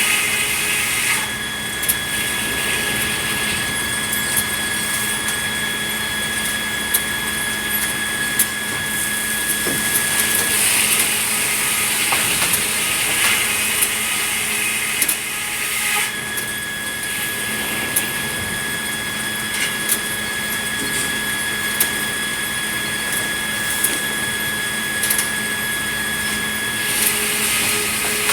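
Sawmill saw running and cutting red pine: a steady machine drone with scattered knocks, and a high whine that stops about ten seconds in, returns at about sixteen seconds and stops again near the end.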